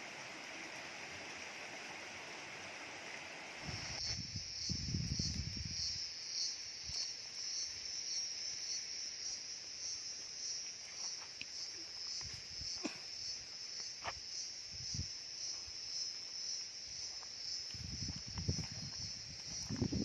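Insects chirping in a steady, high, pulsing trill, starting about four seconds in after a few seconds of soft hiss. A few sharp clicks and some low rumbles come in over it.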